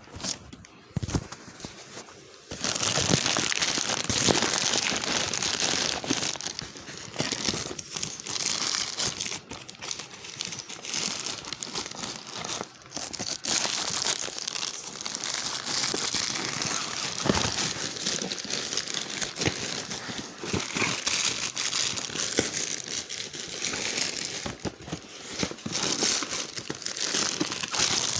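Parcel packaging being crinkled and torn open by hand: a dense run of crackling and crinkling that starts about two and a half seconds in and keeps going.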